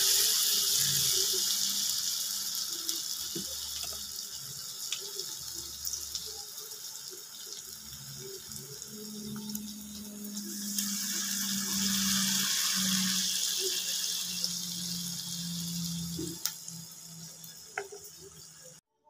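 Corn fritter batter deep-frying in hot oil: a steady sizzle with scattered crackles and pops. It is loudest at the start, eases off, swells again about halfway, then fades and cuts off suddenly near the end.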